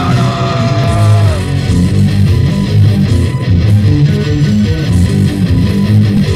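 Rock band demo recording from a cassette tape: electric guitar and bass guitar playing together. A held, wavering note ends about a second in, then a moving bass line continues under the guitars.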